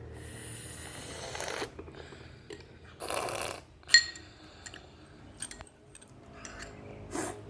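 Two short noisy slurps and a single sharp clink of a spoon against a glass, which rings briefly, about four seconds in. Small clicks of handling come in between.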